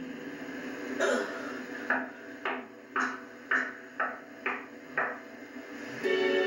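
A series of about eight sharp knocks, roughly two a second and a little unevenly spaced, each with a short ring after it. Music comes in near the end.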